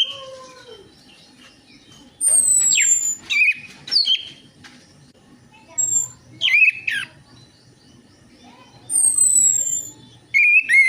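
Orange-headed thrush (anis merah) song in short separate phrases with pauses between them: high, thin falling whistles and sharp slurred notes. It is the kind of song played as a lure to set a quiet anis merah singing.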